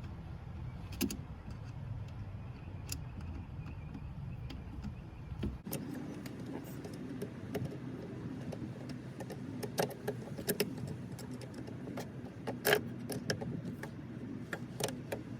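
A steady low hum that cuts off abruptly about five and a half seconds in, followed by a run of irregular small metallic clicks and clinks of hand tools doing up hose clamps on the catch can hoses, the loudest clink near the end.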